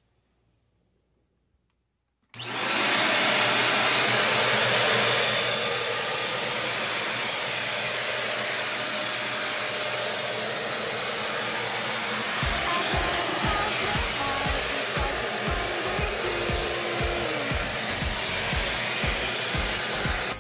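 Britânia 1000 W 2-in-1 upright vacuum cleaner switched on about two seconds in. Its motor spins up with a brief rising whine, then runs with a loud, steady rushing whine.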